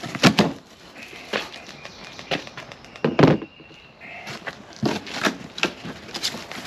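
Large cardboard shipping box being tipped over and its flaps pulled open: irregular scuffs, knocks and crackling of cardboard, with the loudest knock a little over three seconds in.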